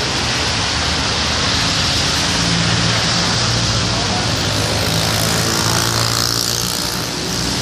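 A vehicle engine running with a steady low hum that comes in about two seconds in, over a constant rushing hiss of traffic on a flooded road.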